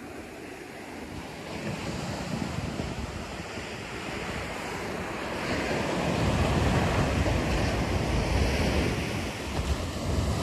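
Ocean surf breaking and washing up a sandy beach, with wind buffeting the microphone in a low rumble. It grows louder about six seconds in.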